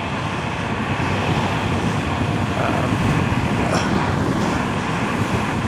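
Steady wind rush buffeting the microphone with low road rumble from a Nami Klima electric scooter riding along at speed.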